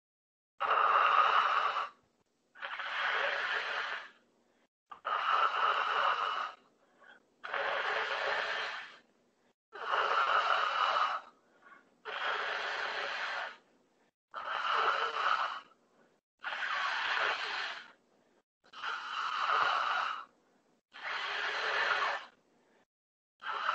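A man breathing deeply and forcefully through a wide-open mouth in a postural breathing exercise. About ten long rushes of breath, each about a second and a half, come roughly every two seconds with silent gaps between them.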